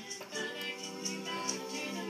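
Acoustic folk song: singing over strummed acoustic guitar, with a light regular beat about four times a second.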